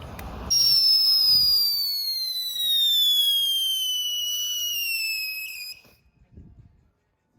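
Whistling firework giving one long, loud whistle that starts about half a second in and slowly falls in pitch for about five seconds before stopping.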